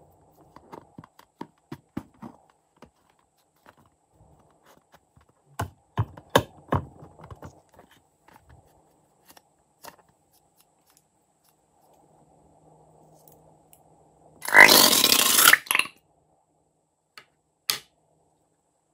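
Hands squeezing and rubbing a liquid-filled rubber balloon, with small squeaks and taps, then a loud gush lasting about a second and a half as green liquid is squeezed out of the balloon's neck into a plastic tub.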